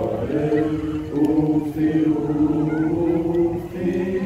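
A group of teenage boys singing together without accompaniment, holding long, drawn-out notes that change pitch every second or so.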